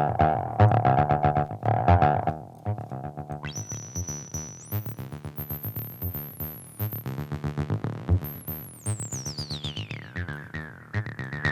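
TB-303-style acid bass line played through a distortion plugin with its feedback loop engaged: a fast, even run of distorted synth notes. About three and a half seconds in, a high whistling feedback tone joins and climbs higher, then sweeps down near the end.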